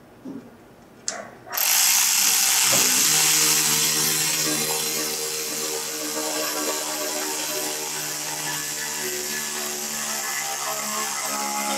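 A handheld power tool running steadily for about eleven seconds, its motor and gears whirring, tightening a hose clamp on an upper radiator hose coupler. It starts about a second and a half in, just after a click, and its motor pitch steadies a second later.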